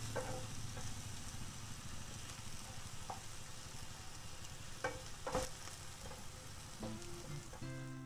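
Chopped tomatoes, onion, garlic and spring onion sizzling in hot oil in a wok while a wooden spatula stirs them, with a few sharp knocks and scrapes of the spatula on the pan, the loudest a little past halfway.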